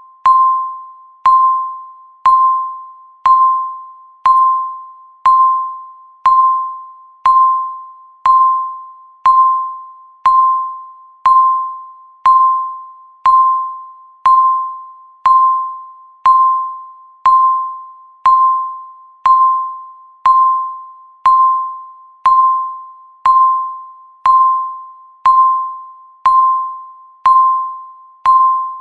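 Countdown timer's electronic tick: one short, pitched tick each second, each starting sharply and fading away quickly, evenly spaced.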